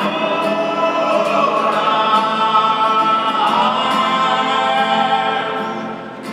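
Several voices singing long-held notes in close harmony, live in a large arena and recorded from the stands, fading near the end.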